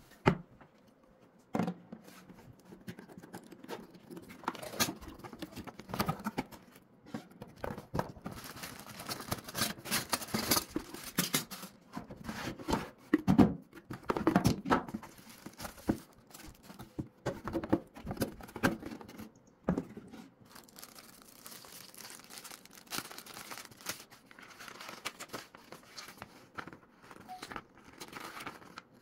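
Cardboard packaging being opened and handled, with crinkling plastic bags and knocks of the box, loudest in the middle; after that, quieter rustling of paper sheets.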